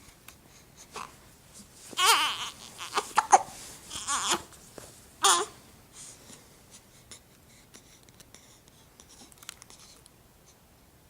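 A four-week-old baby fussing: a handful of short cries and babbling sounds packed into about three seconds, then only small faint noises.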